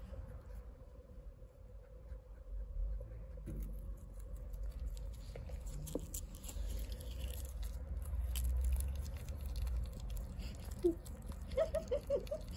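Rustling and many small clicks from handling close to a guinea pig's cage, over a steady low rumble. Near the end, a quick run of five or so short squeaky notes.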